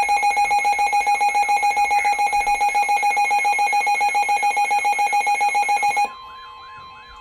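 Weather alert radio alarm sounding a loud, shrill electronic beep, about seven pulses a second, the signal of an incoming severe-weather warning. It cuts off about six seconds in, leaving a fainter steady tone.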